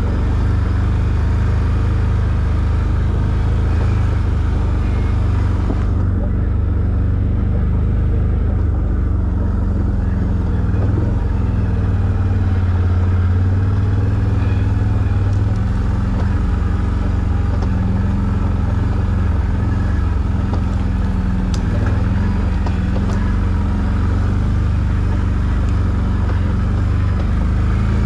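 ATV engine running steadily under way, a low even drone that holds its pitch.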